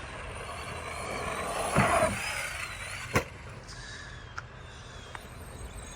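Arma Granite Boost RC monster truck with its brushed 550 motor driving, a whirring motor and tyre noise that swells about two seconds in, with a sharp knock about three seconds in and a couple of light clicks after.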